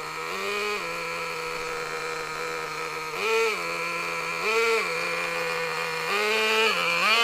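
VRX .18 nitro engine of an RC truck idling steadily, blipped up in pitch four times in short revs while reverse is tried. Reverse does not engage, which the owner puts down to a reverse spring that needs tightening.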